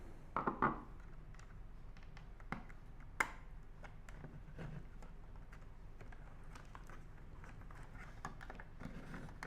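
Light plastic clicks and taps of a Phillips screwdriver working the battery-compartment latch screw on a hardwired smoke alarm. A few louder clicks come about half a second in and a sharp one at about three seconds, with fainter ticks between.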